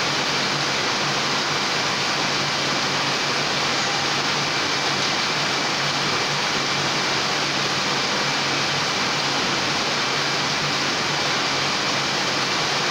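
Heidelberg Speedmaster SM 74 sheet-fed offset press running: a steady, even machine noise with a low hum and a faint high whine.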